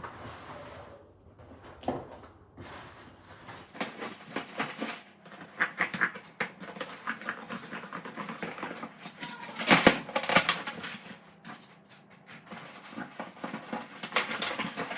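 A parcel being opened by hand: irregular rustling, scraping and clicking of the packaging, with a louder stretch of crackling about ten seconds in.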